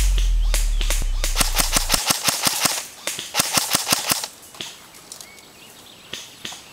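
Airsoft rifle firing a quick string of sharp cracks, about five a second, that stops about four seconds in, with a few single shots near the end. Under the first two seconds a music track's bass fades and cuts off.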